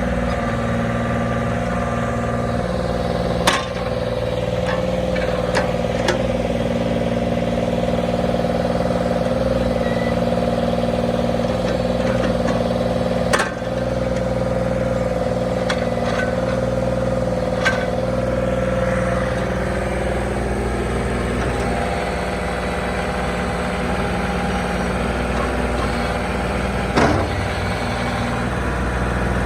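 Ford backhoe's engine running steadily, with a steady higher tone over it that drops away about twenty seconds in. A few sharp knocks come at intervals, the loudest about thirteen seconds in.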